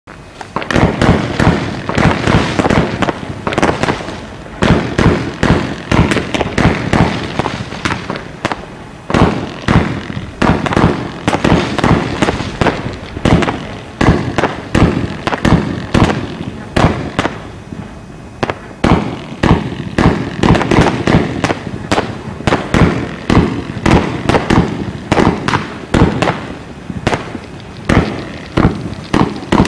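Heron Cake 456, a Category II consumer firework battery (cake), firing shot after shot: sharp bangs and crackling bursts several times a second, in runs of a few seconds with brief lulls between them.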